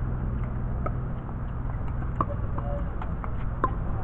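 Pickleball paddles striking a plastic pickleball during a rally: a series of short, sharp pocks at irregular intervals, the loudest about two seconds in and near the end, over a steady low rumble.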